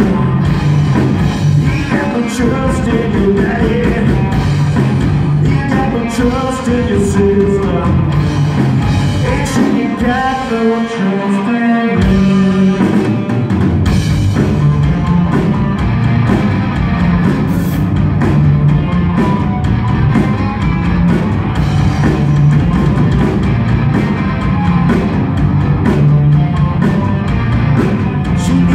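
Rock band playing live on electric guitars, bass and drum kit, heard through the venue's sound system. About ten seconds in the bottom end drops away for a few seconds, then the full band comes back in.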